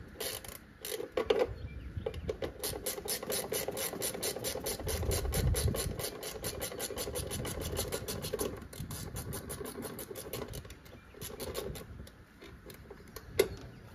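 Hand socket ratchet clicking steadily, about six clicks a second, as a bolt is wound out, with a couple of short pauses partway through.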